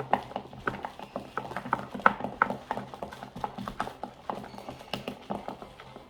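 Slime mixture being stirred in a bowl: a quick, irregular run of taps and clicks as the stirring utensil knocks and scrapes against the bowl.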